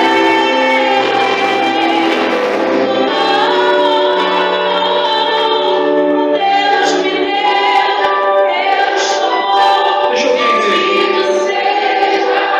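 Music with singing: several voices hold sustained notes in a worship song, over instrumental accompaniment.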